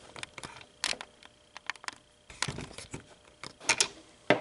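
Scattered clicks and light knocks of handling: a hard HDPE hockey helmet shell picked up and set down on a wooden workbench while the recording phone is repositioned.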